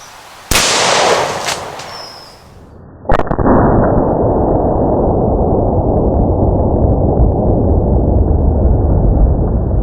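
A single shot from a Glock 40 10mm pistol about half a second in, a sharp crack that rings on briefly and fades. About three seconds in comes a second sharp report, followed by a long, loud, muffled low rumble.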